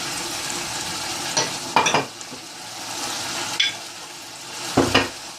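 Chicken frying in a pan with a steady sizzle, broken by a few knocks and scrapes of a spoon against the pan as green paste is added and stirred in. The sizzle quietens after about two seconds.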